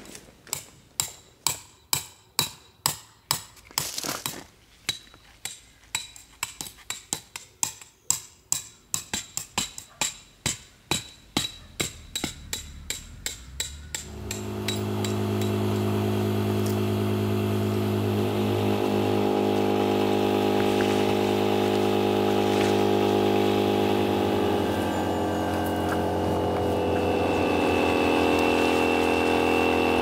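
A hammer driving metal tent pegs into gravelly ground: quick, ringing strikes in runs of several, roughly two or three a second. About halfway through an electric air pump starts and runs with a steady hum, inflating the beams of an inflatable tent.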